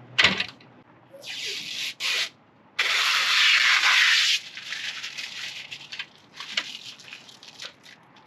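A sharp click, then rubbing and scraping noises in bursts, the longest lasting about a second and a half near the middle, trailing off into lighter crackling rubs.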